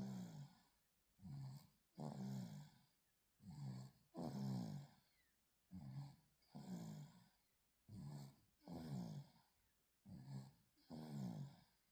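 A four-month-old baby snoring faintly in its sleep: regular short snores about once a second, each a low buzzing tone.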